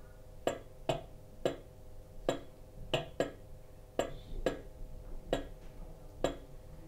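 Sound-decoder recording of a Class 66 diesel locomotive's standard Spirax valves, played through an OO gauge model's small speaker: sharp, irregular clicks, one or two a second, with the engine shut down.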